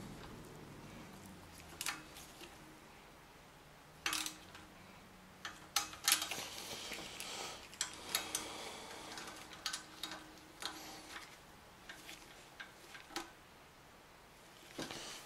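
Small quarter-inch ratchet on a 10 mm universal socket, clicking and clinking in short irregular spurts as the oil pickup tube and oil pump bolts are tightened.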